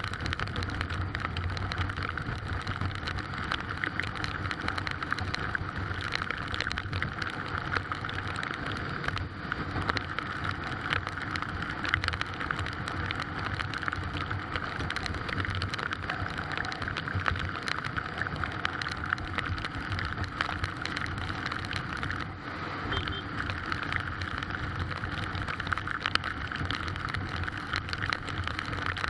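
Heavy rain with strong wind: a steady, dense patter of raindrops over a low, steady rumble.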